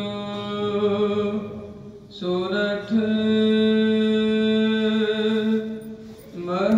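Gurbani chanted by a single voice in long, steady held notes, each phrase opening with a short upward slide into the note. The chant breaks off briefly about two seconds in and again near the end before the next phrase begins.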